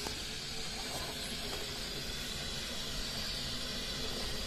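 A steady hiss with a low rumble underneath, even throughout, with no distinct knocks or tones.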